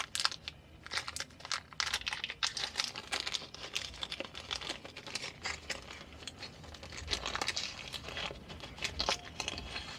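Hands working small carburettor parts during reassembly: a crinkling rustle with many light clicks and scrapes.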